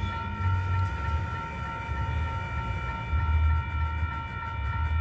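Slow freight train made up of coil cars, heard close to the track: a steady whine of several high tones held throughout, over a low rumble that swells and fades every couple of seconds.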